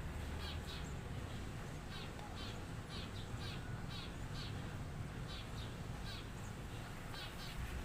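A baby bird cheeping: short, high, faint chirps repeated roughly every half second, often in pairs, over a steady low rumble.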